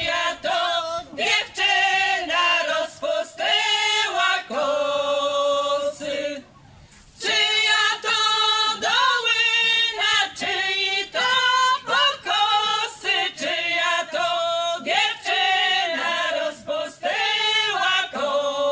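A small ensemble of women singing a folk song a cappella together, in phrases that end on long held notes, with one short breath pause about six seconds in.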